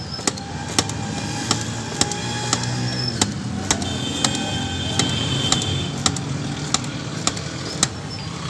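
Hand-lever sugarcane cutter chopping peeled cane into chunks, a sharp chop about twice a second, over a steady hum of traffic and engines.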